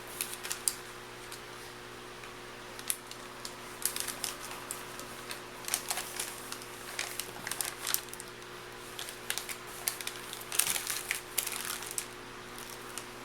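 MRE packaging and ration-heater pouch being handled: plastic crinkling and small clicks in irregular clusters.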